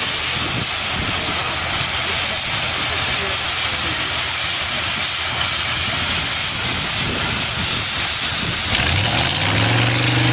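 Steam traction engine hissing steadily as steam blows off. About nine seconds in, a low engine note rises quickly and then holds steady.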